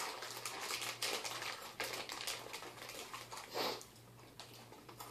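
Faint crunching and crackling of Mini Takis rolled tortilla chips being chewed, over a low steady hum.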